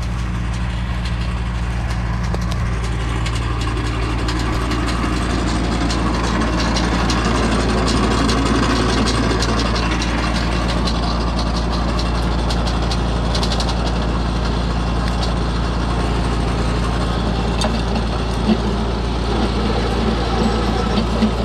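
An engine running steadily at an even, low speed.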